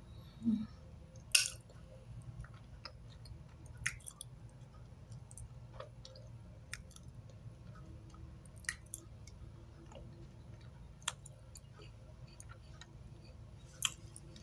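Close-up mouth sounds of someone chewing soft, wet white clay chalk: sparse sharp clicks and crunches a second or two apart, the loudest about a second in.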